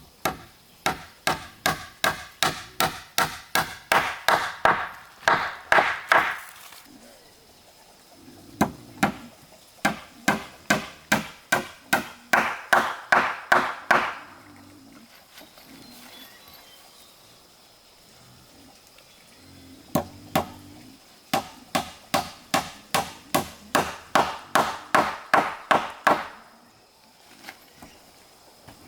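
Hammer blows on wood in three runs of quick, even strikes, about two to three a second. Each run grows louder and higher-pitched as it goes.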